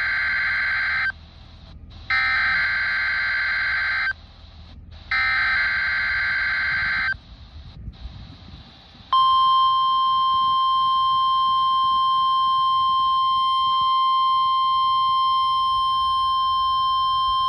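NOAA Weather Radio Required Weekly Test signal from a RadioShack 12-254 weather radio's speaker. First come three bursts of SAME digital header data, harsh warbling screeches about two seconds each with about a second between them, the first already under way. After a short pause the steady 1050 Hz warning alarm tone begins about halfway through and holds, with a low hiss of static from the distant station beneath.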